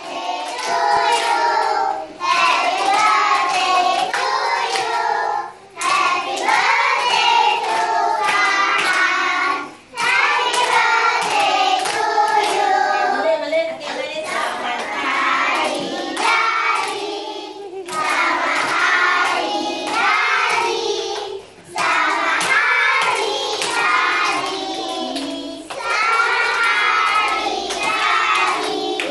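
Children singing a song together, with hand claps running through it.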